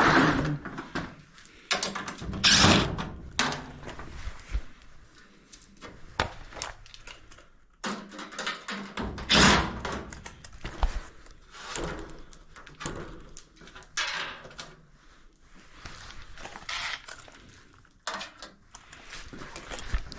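Irregular knocks, clunks and short scrapes of hand tools and screws on the sheet-metal housing and flue pipe of a furnace draft inducer, as the fastening screws are removed.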